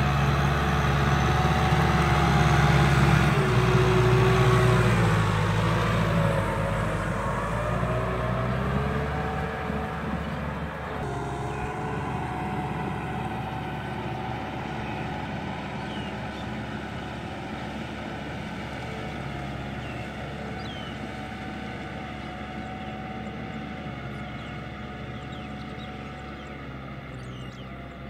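A farm tractor's engine running as the tractor drives away. It is loud for the first several seconds, with its pitch shifting a little, then fades steadily as it moves off into the distance.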